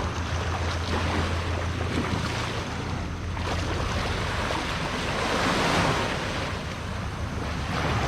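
Sea waves washing onto the shore, the surf swelling and easing, loudest about five to six seconds in, with wind buffeting the microphone as a steady low rumble.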